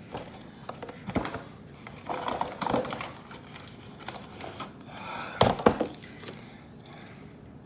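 Plastic toy track pieces and packaging being handled: rustling with scattered clacks, the loudest cluster about five and a half seconds in.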